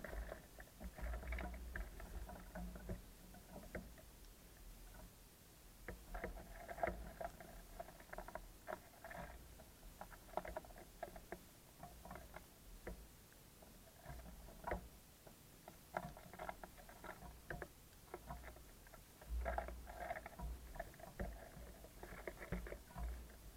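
Small birds pecking and hopping on a bird feeder: faint, irregular clusters of light taps and scratches, with a few sharper clicks and some low thumps.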